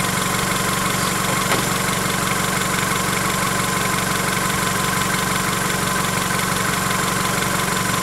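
Honda Accord engine idling steadily, its newly replaced alternator charging the battery at about 13 volts and its freshly adjusted drive belt no longer squealing.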